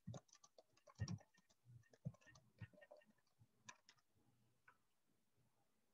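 Near silence with a handful of faint, irregular computer clicks.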